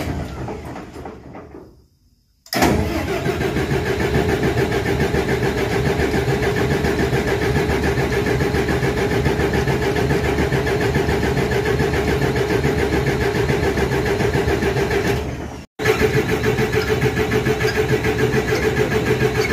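Ship's port main diesel engine running under test: a loud, steady engine noise with an even pulsing beat. It comes in suddenly about two and a half seconds in, after a fainter sound dies away, and drops out for an instant about three-quarters of the way through.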